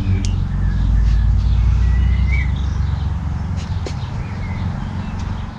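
Low engine rumble of a nearby vehicle, loudest over the first three seconds and fading toward the end, with birds chirping over it.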